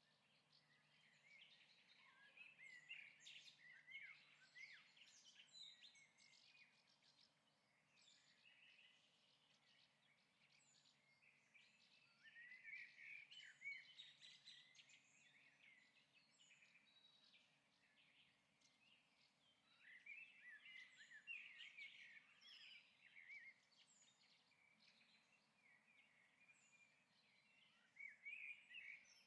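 Faint birdsong: many small birds chirping in bouts of a few seconds that come back roughly every eight seconds.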